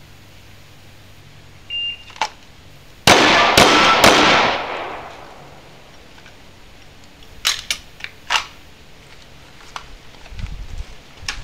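A shot timer gives one short high beep, and about a second later a semi-automatic pistol fires a rapid string of shots lasting just over a second, with echoes trailing off. A few sharp clicks follow several seconds later.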